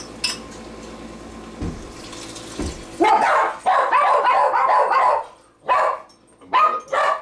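Steady pour of chicken stock into the cooking pot, then house dogs barking in loud, repeated bursts from about three seconds in.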